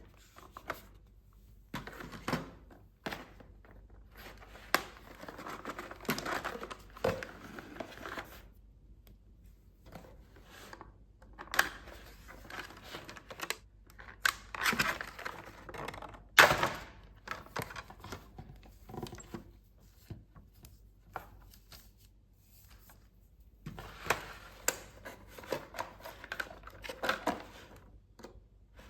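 Toy packaging and small plastic playset pieces being handled: crinkling and tearing with sharp clicks and taps, in bursts broken by two quiet pauses, the loudest click a little past halfway.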